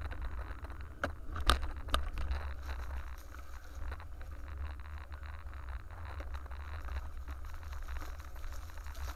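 Steady low wind rumble and rustle on the microphone of a camera moving along a sidewalk, with three sharp knocks between about one and two seconds in.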